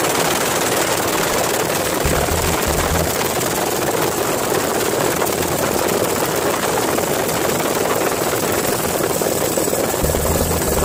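Helicopter in cruise flight with the doors off: steady rotor and engine noise mixed with heavy wind rush, and a thin high whine held throughout. Low rumbling swells come about two seconds in and again near the end.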